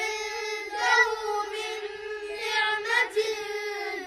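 Melodic Quran recitation chanted in a high, child-like voice, with long held notes.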